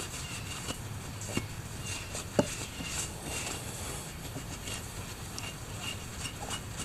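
Rag scrubbing a motorcycle's rear sprocket clean, a soft rubbing noise with a few light clicks and one sharper knock about two and a half seconds in.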